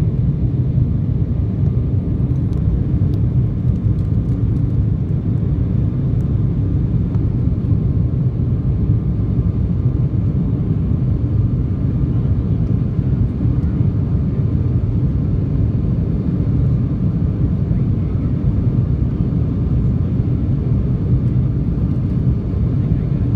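Airliner cabin noise during the climb after takeoff: a steady low roar of the engines and rushing air, heard from a window seat.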